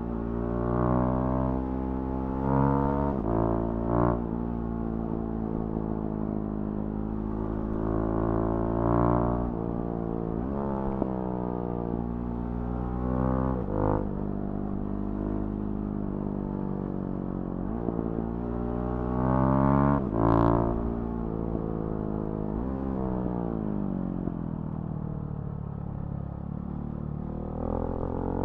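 Husqvarna Svartpilen 701's single-cylinder engine through a Remus NXT exhaust, running under way. Its pitch climbs and then drops abruptly several times with throttle and gear changes, with a few short louder blasts along the way.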